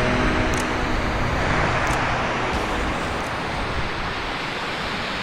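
Steady rushing of water, an even hiss-like roar with no rhythm.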